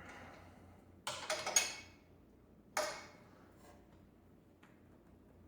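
Wrench working a bolt as the rear shock's mounting bolt is tightened, metal clicking and clinking. A quick run of clicks comes about a second in, then a single clink with a short ring near the middle.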